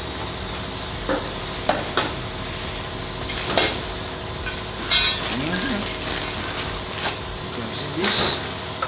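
Scattered small metal clinks and scrapes as a T-bolt, washers and nut are fitted to an elevator door sill's support bracket, over a steady hiss. The loudest clink comes about five seconds in.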